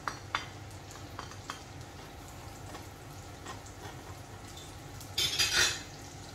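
Chopped garlic and shallots sizzling in oil in a frying pan, stirred with a spatula. A few sharp clinks of the spatula against the plate in the first second and a half, and a louder scraping burst about five seconds in.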